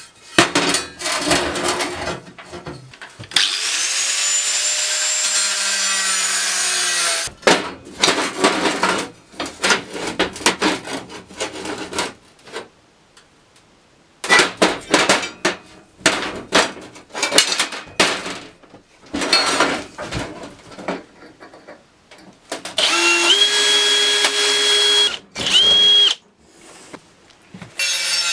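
Workshop tool work: a power tool runs in short spells, its whine rising as it spins up and falling as it winds down, with runs of rapid scraping or cutting strokes in between.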